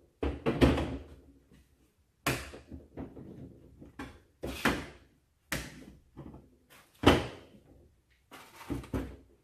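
Bar clamps being undone and wooden boards and clamps handled and set down on a folding table: a series of about seven sharp clunks and clatters. The loudest come about half a second and about seven seconds in.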